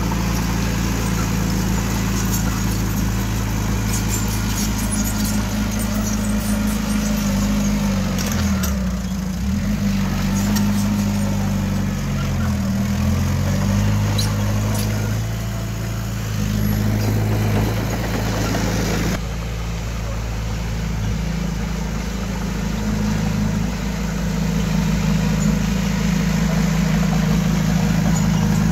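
Heavy diesel engine of an earthmoving machine running steadily; its note sags and picks back up twice, about a third and about half of the way in, with light clanking over it.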